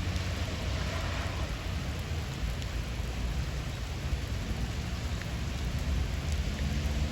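Steady rain falling during a thunderstorm, with a low rumble underneath.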